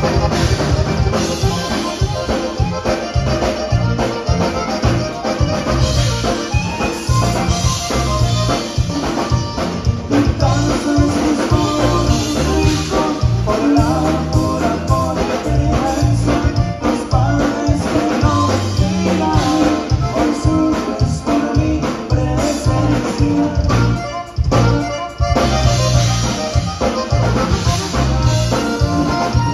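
Live conjunto band playing: button accordion over a bajo sexto, electric bass and drum kit, with a steady dance beat and a brief break about 24 seconds in.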